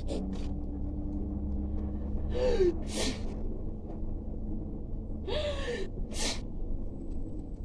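A person sneezing twice, about three seconds apart: each sneeze is a rising 'ah' intake followed by a sharp 'choo'. These are put-on sneezes, made as a prank.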